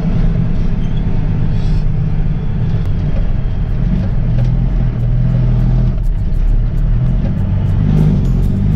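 Semi truck's diesel engine running, heard from inside the cab as a steady low drone whose pitch shifts slightly as the truck moves slowly along a snowy lane.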